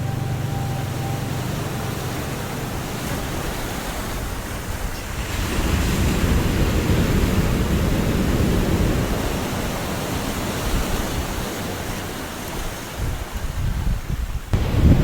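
Ocean surf and wind buffeting the microphone. The rushing noise swells louder about five seconds in and turns gusty near the end.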